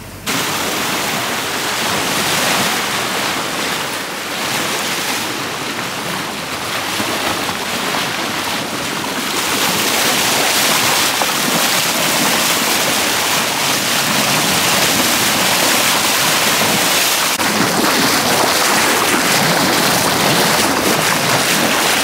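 Sea water rushing and splashing along the hull of a sailing yacht under way, mixed with wind on the microphone; it gets louder about ten seconds in.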